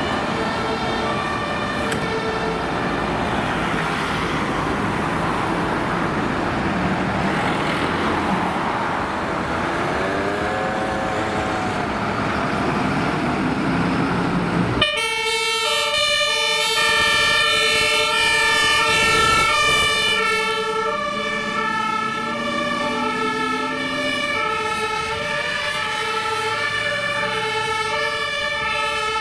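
Fire engines' German two-tone sirens (Martinshorn) sounding, switching back and forth between a high and a low note, over the noise of the trucks' engines. About halfway through the sound changes abruptly to a cleaner, closer siren.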